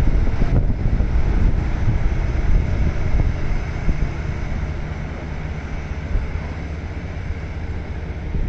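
Railway ballast regulator working on the track: its engine and ballast-sweeping make a steady noise that grows slightly fainter as the machine moves away, with wind buffeting the microphone.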